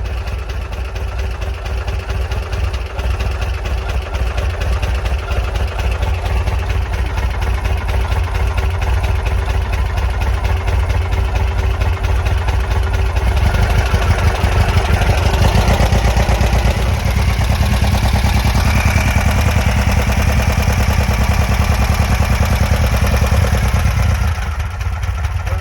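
Air-cooled flat-four engine of a 1963 VW bus running steadily; it grows louder about halfway through and drops back near the end.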